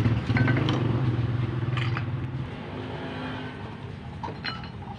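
A motor vehicle's engine running steadily, then fading away after about two and a half seconds, with a few light clicks.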